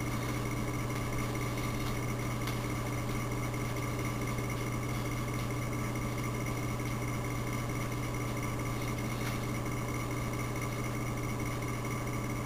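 A steady low electrical hum with fainter higher tones over it, unchanging throughout: room tone, with no other events.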